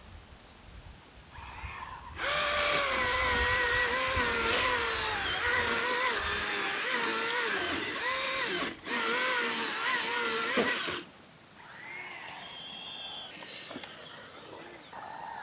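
Battery-powered electric cutting tool running under load, its motor whine wavering and dipping in pitch as it cuts, with a short break partway through. It stops about eleven seconds in, leaving a fainter whirring.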